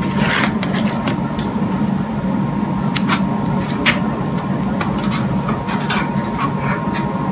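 Scattered light clicks and rustles of a wiring harness and its plastic connectors being handled, over a steady low hum.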